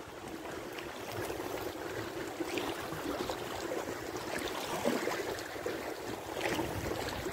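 Shallow river water rippling and rushing over a stony riffle around an inflatable kayak, a steady wash with a few small splashes.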